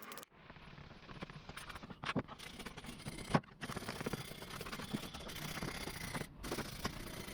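Light scraping and handling noises from hand work on a tool, in short clips joined by abrupt cuts, with scattered sharp clicks and taps, the loudest a little past three seconds in.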